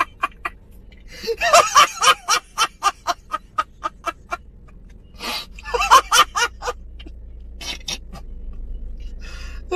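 A man laughing hard in two fits of quick, repeated bursts, about three or four a second.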